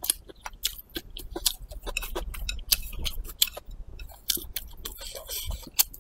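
Close-miked chewing of fried rice and braised pork intestines: a rapid, irregular run of wet mouth clicks. Near the end, chopsticks scrape rice from the bowl toward the mouth.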